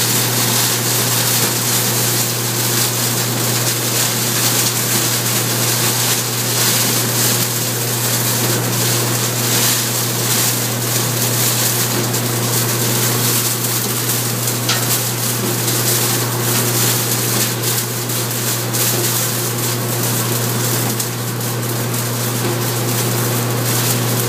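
A straw-shredding machine running steadily, its toothed rotor turning and shredding hay fed into it. A constant low hum sits under a dense rushing noise.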